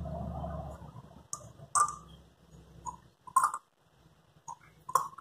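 Light clicks and taps of a pipette against a glass flask and a small reagent ampoule as oil is drawn and dispensed for an A/C oil acid test. The clicks are sparse at first and come faster near the end. A low hum stops about a second in.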